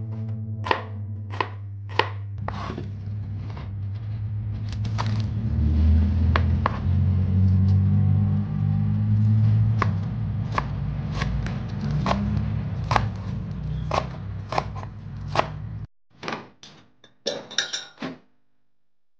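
Knife chopping shallots and spring onion leaves on a plastic cutting board: sharp, irregular knocks about every second, over a steady low rumble. About 16 seconds in the rumble stops suddenly, and a few lighter knocks and clinks follow.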